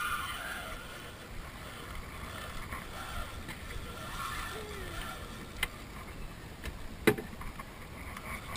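Wind rumbling on an open action-camera microphone over open water. A sharp knock about seven seconds in, with a fainter click a second and a half before it.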